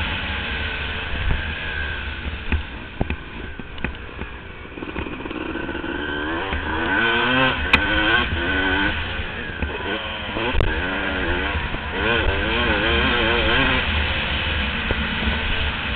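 Motocross bike engine heard from a camera mounted on the bike, its revs rising and falling over and over as the rider works the throttle and shifts. The engine eases off for a moment a few seconds in, then revs hard again, over a steady low rumble of wind on the microphone.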